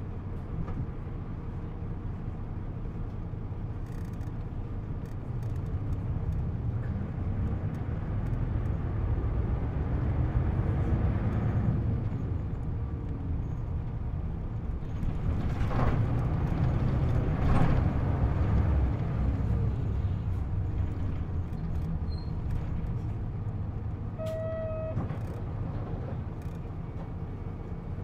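Isuzu U-LV324K city bus's diesel engine heard from on board, pulling hard at high revs; it builds up twice, about ten and seventeen seconds in, easing off in between. Two short electronic beeps sound near the end.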